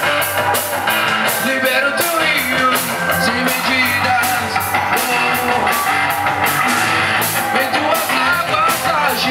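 A rock band playing an instrumental intro to a Portuguese-language Christian worship song: electric guitar over a steady drum beat and bass.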